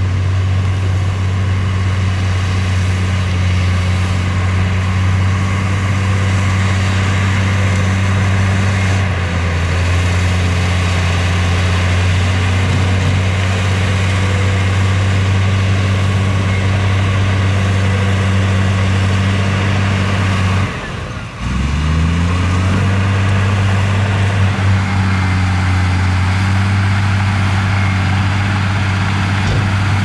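Heavy construction machine's diesel engine running steadily with a deep, even drone. About two-thirds of the way through it drops off for a moment, then revs back up with a rising pitch.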